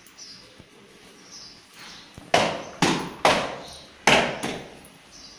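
Five sharp knocks in quick succession, each with a short echoing tail, in two groups of three and two, about half a second apart.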